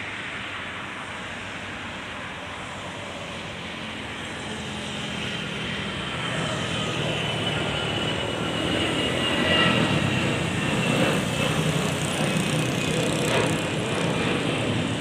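Jet airliner engines at takeoff power, growing louder over several seconds, with a high turbine whine that slowly falls in pitch as the aircraft goes by.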